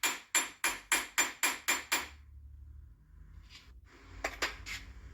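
Hammer blows on a steel punch held against the nut on the end of a front axle shaft seized in the wheel bearing spline, a steady run of ringing metallic strikes about three a second that stops about two seconds in. A few light metallic clinks follow.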